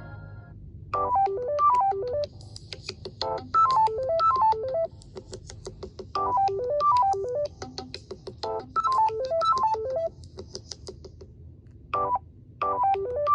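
Samsung Galaxy A01 ringtone playing through the phone's speaker: a short melody of quick notes stepping down in pitch, repeated about every two and a half seconds.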